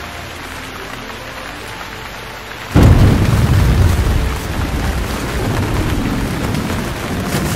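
Rain in an open jeep, a steady hiss; about three seconds in it jumps to a much louder rough rushing with a heavy low rumble as rain beats on a thin cloth sheet drawn over the passengers, close to the microphone.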